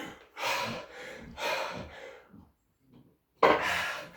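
A man breathing hard and heavily, panting to catch his breath after a round of Navy SEAL burpees. The breaths come as a series of airy blasts, with a pause of about a second before a sudden louder one near the end.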